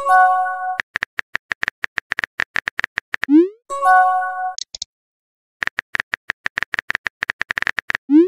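Phone keyboard tap sounds clicking in quick runs as messages are typed. A short rising swoop marks a message being sent, followed by a brief chime of several steady notes as the message bubble appears; this happens once at the start, once about four seconds in, and the swoop starts again at the very end.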